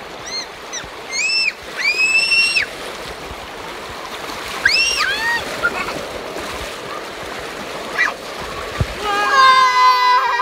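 River rapids rushing and splashing around an inflatable inner tube. Over the water come several short, high-pitched squeals that rise and fall, from a child riding the rapids, and a voice breaks in near the end.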